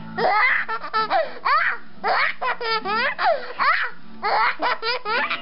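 Baby laughing hard in a string of bursts, some quick staccato giggles and some high squeals that sweep up and down in pitch.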